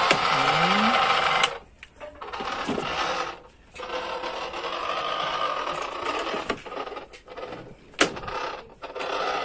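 Electronic sound from a child's battery-powered plastic ride-on toy, a steady buzzing tone set off from its dashboard buttons. It cuts out suddenly several times and starts again, with a sharp click near the end.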